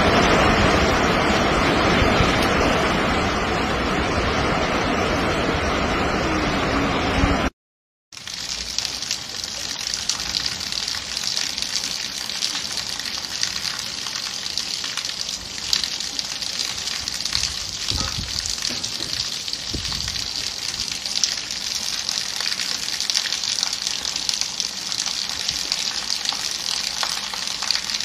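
Muddy flash-flood water pouring over rock ledges, a loud steady rush that cuts off about seven seconds in. After a brief silence comes steady rain falling on a wet concrete patio, a quieter, higher hiss.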